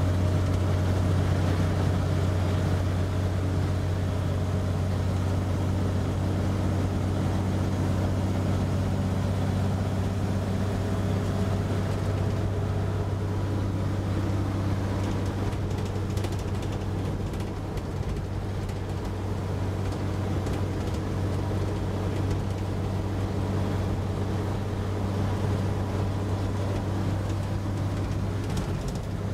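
1941 Dodge military panel truck driving at a steady speed, heard from inside the cab: the flathead six engine's steady drone with road and wind noise, and noise from a driver's door that needs adjusting.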